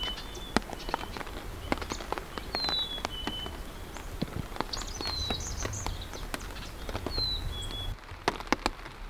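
A songbird whistling a clear two-note call, a higher note then a lower one, about four times, every two and a half seconds or so. Scattered light ticks and a low wind rumble lie under it, and the rumble stops about eight seconds in.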